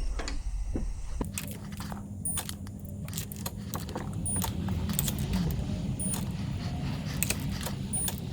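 Irregular metallic clicks and clinks of hand tools and bolts as the differential's ring gear bolts are threaded in and torqued. A steady low hum comes in about a second in.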